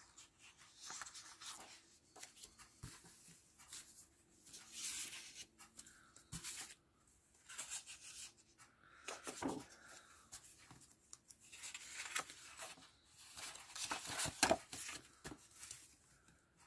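Sheets of patterned scrapbook paper rustling and sliding against each other and the cutting mat as they are handled and leafed through: irregular soft swishes with light taps.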